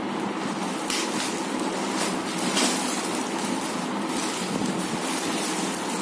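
Plastic courier mailer bag crinkling and rustling as it is pulled open and handled, with a few louder crackles, over a steady hiss.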